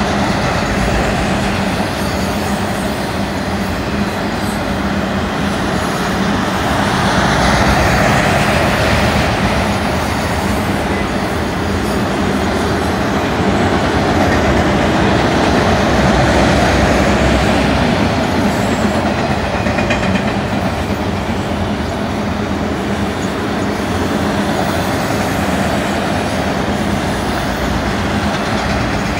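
Autorack freight cars of a fast-moving train rolling past: the steady noise of steel wheels running on the rails, swelling a little twice in the middle.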